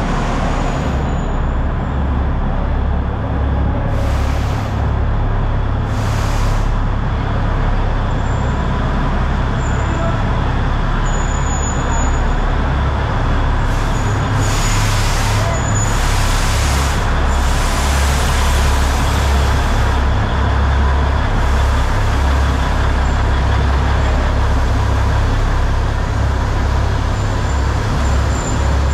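Narrow-gauge diesel locomotive of the Matheran toy train running as it pulls in and passes, with a steady low engine rumble as the coaches roll by. A few brief high squeals come through now and then.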